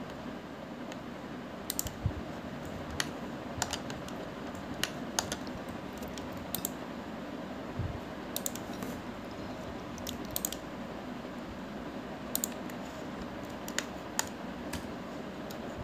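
Scattered clicks of a computer keyboard and mouse, unevenly spaced at roughly one a second, over a steady low hiss.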